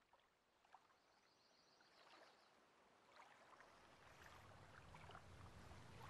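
Faint, slowly swelling flutter of many small wings as a flock of white birds rises, a soft rustling haze dotted with quick flicks. A low rumble builds in underneath from about four seconds in.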